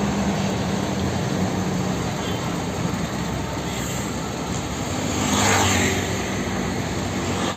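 A steady engine-like drone with a low hum, swelling louder about five seconds in.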